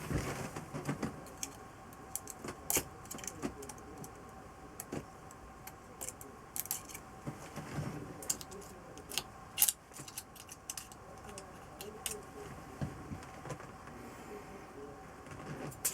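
Small metal parts and hand tools clinking and clicking irregularly while engine parts are handled and assembled.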